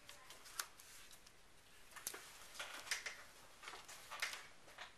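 Faint rustling of cardstock being handled, with several soft, irregular brushes and scrapes as fingers smooth tape down onto the card.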